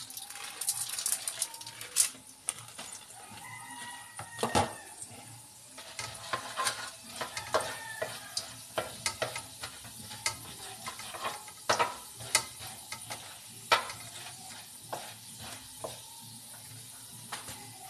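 Annatto seeds frying in hot oil in a steel wok, a faint steady sizzle under irregular sharp clicks and scrapes of a spatula stirring against the pan.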